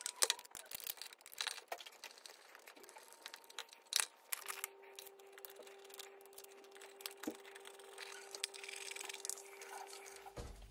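Faint clicks, scrapes and rustles of hands and a screwdriver working cable cores into a wall electrical accessory and pushing its faceplate onto the back box, with one sharper click about four seconds in. A faint steady hum sets in shortly after.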